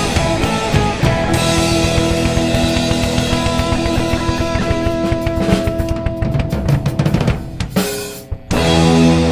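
Rock band playing live: drum kit with busy snare and bass-drum hits under electric guitars and bass guitar. About eight seconds in the music briefly thins out, then the band strikes a loud chord that rings on.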